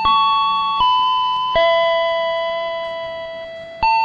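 A slow melody of single chime-like electronic notes, each struck sharply and left to fade, with one lower note held for about two seconds in the middle.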